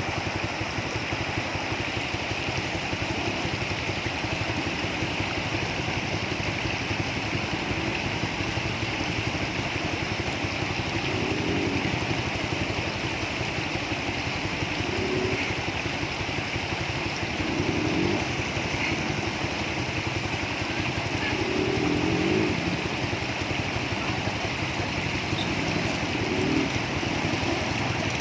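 ATV engine running steadily, swelling briefly a few times.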